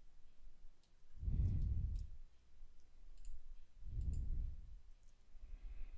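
Computer mouse and keyboard clicks: faint, sharp, scattered ticks during 3D modelling work. Two soft, low puffs of breath on the microphone, about a second in and again about four seconds in, are the loudest sounds.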